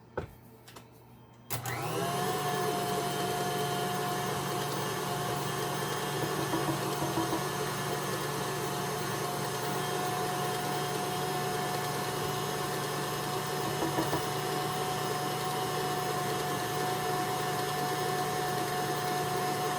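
Electric stand mixer switching on about a second and a half in and running at a steady speed with a constant whine, beating a thick powdered-sugar icing.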